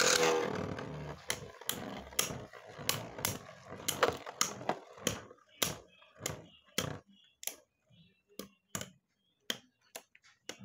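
Two Beyblade Burst spinning tops battling in a plastic stadium. A whirring spin fades over the first couple of seconds, then comes a run of sharp plastic clicks as the tops strike each other, about three a second at first and growing sparser toward the end.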